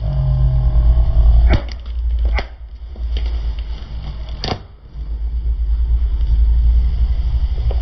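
A car's low engine and tyre rumble as it rolls over plastic toys, with a few sharp cracks of plastic snapping, the loudest about four and a half seconds in.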